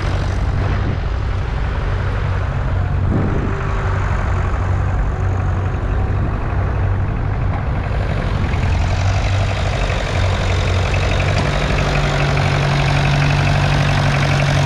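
International Harvester B275's 2.3-litre four-cylinder diesel engine running steadily close by. Its note steps up about eleven seconds in as the revs rise.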